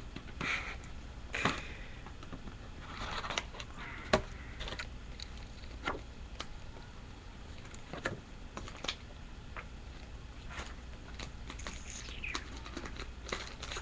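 Unboxing noises: irregular clicks, taps and short rustles of a phone's box and the paper and plastic packing inside being handled, with the sharpest clicks about a second and a half and about four seconds in.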